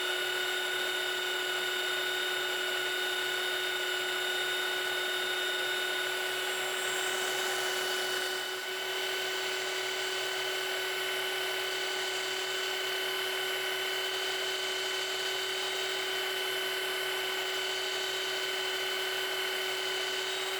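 A 3x21 belt sander running steadily while the tip of a steel screwdriver shaft is hollow-ground against its wheel: a constant motor whine over a grinding hiss, with a brief dip in loudness about eight and a half seconds in.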